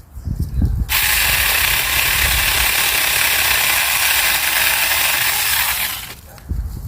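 Saker 20 V cordless mini chainsaw running, its electric motor and chain making a steady whir that starts about a second in and stops after about five seconds.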